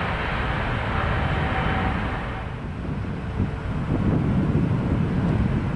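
Heavy jet airliner's engine noise, a broad rush with a faint whine. About two and a half seconds in, the hiss fades and a low rumble takes over, with wind buffeting the microphone.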